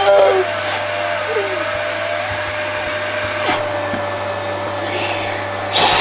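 Vacuum cleaner running steadily, its motor giving a constant whine over a hum and rushing air. Near the end the sound jumps suddenly louder and harsher.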